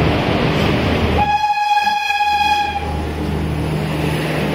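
Passenger coaches rumbling along the rails as two trains pass each other, with one steady locomotive horn blast lasting about a second and a half, starting about a second in.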